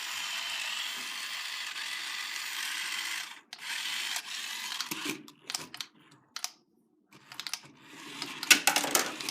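Plastic radio-control toy car being handled. A steady whirring hiss lasts about three and a half seconds, then a run of irregular clicks and light plastic rattles, with a short dead stop near the middle of that run.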